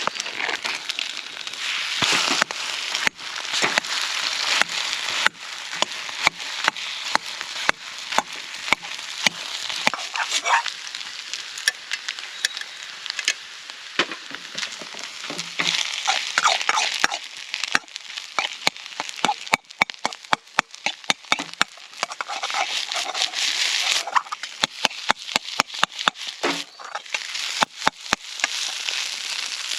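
Food sizzling in an iron wok, with rapid, irregular clicks and scrapes of a utensil stirring and tossing against the pan: fried rice being stir-fried.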